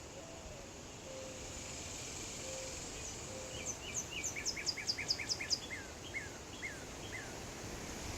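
Songbird singing a run of quick, sharp downslurred whistles, packed tight at first and then slowing to a few separate notes. A few soft low notes sound in the first seconds, over a steady outdoor hiss of breeze.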